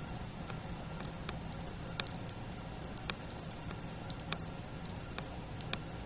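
Light, irregular clicks and ticks, a few a second, over a steady low hum.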